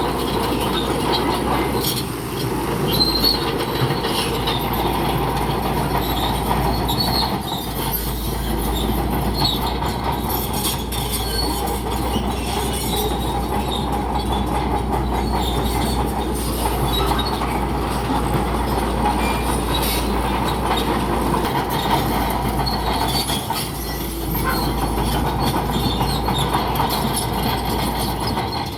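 Bulldozer working: diesel engine running under a steady squeal and clatter from its steel crawler tracks.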